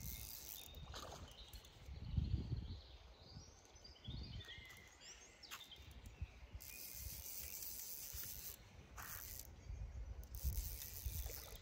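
Lakeside outdoor ambience: wind buffeting the microphone in uneven low rumbles, strongest about two seconds in, with birds chirping and two spells of rushing hiss, the longer one starting a little past halfway.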